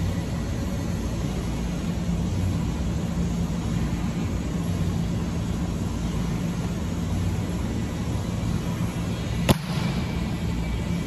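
Steady low hum of a large indoor hall, with one sharp slap about nine and a half seconds in: a hand hitting a volleyball.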